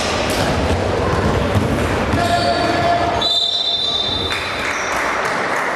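Basketball game noise in a gym: a ball bouncing and players moving across a wooden court. About three seconds in, a referee's whistle sounds as a steady high tone for about a second.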